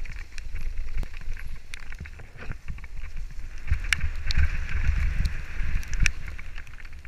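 Wind rumble on a helmet-mounted camera's microphone during a downhill mountain bike descent, with many sharp clicks and rattles from the bike over rough ground. Tyres hiss on gravel, loudest from about halfway through.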